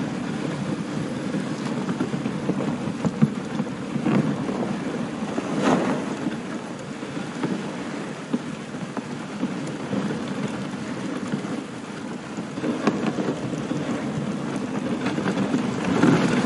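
Dog sled moving along a packed snow trail behind a husky team: a steady rushing scrape of the runners over the snow with wind on the microphone, and a few brief knocks as the sled jolts.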